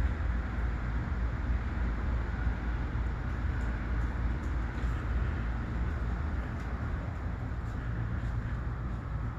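A steady low engine-like hum with a background rumble, keeping an even level throughout.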